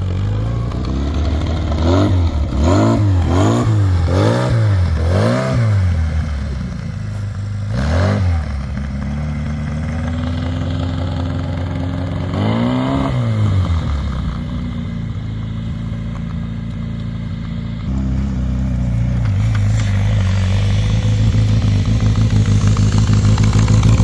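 A vehicle engine revved in five quick blips in a row, then twice more with longer gaps, before settling into a steady run.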